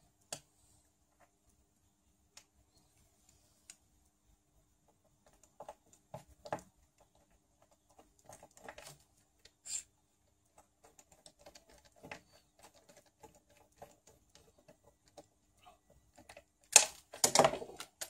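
Scattered small clicks, taps and light rattles of a screwdriver and the plastic and metal parts of an RC buggy being handled on a wooden table. A louder clatter comes near the end as the car is picked up and turned over.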